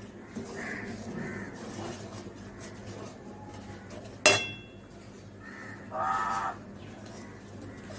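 Wooden spatula stirring a thick masala paste in an aluminium kadai, with one sharp metallic knock against the pan about four seconds in. A short harsh call of about half a second sounds about six seconds in.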